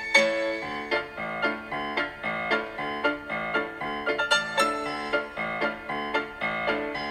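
Piano music: a quick, steady run of struck notes and chords.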